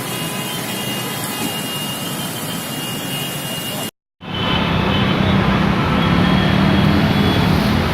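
Steady vehicle engine and traffic noise. It cuts out briefly about four seconds in, then comes back louder with a strong low engine hum.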